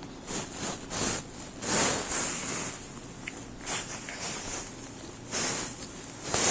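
Irregular rustling and scuffling from a cat pawing and pouncing at an elastic hair tie: a run of short scrapes, a longer stretch about two seconds in, and the loudest scuff near the end.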